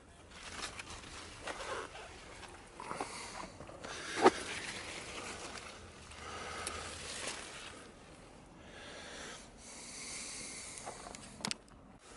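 Rustling of leaves and stems as tomato plants are pushed aside and handled, in uneven swishes. A sharp click about four seconds in is the loudest sound, with another near the end.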